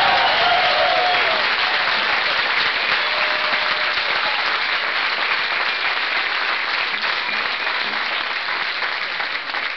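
A packed crowd applauding and cheering, with a few shouts in the first second, slowly dying down toward the end.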